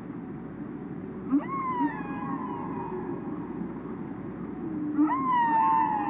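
Two drawn-out humpback whale calls underwater, each sweeping up and then slowly falling in pitch, one starting about a second in and a longer, louder one near the end, with a couple of short low grunts after the first. A steady low rumble of underwater noise runs beneath them.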